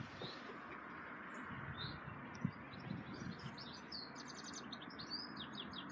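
Small birds chirping, with a quick run of high notes in the second half, over a faint steady background hiss.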